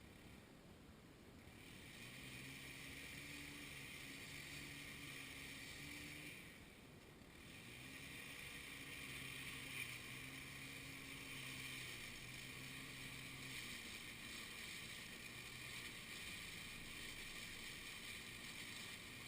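Faint engine running steadily with a hiss over it. It starts about a second and a half in, breaks off briefly around six seconds in, then resumes.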